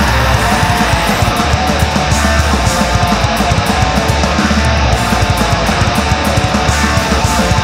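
Black metal recording: dense, distorted electric guitars over fast, rapid-fire drumming, loud and unbroken.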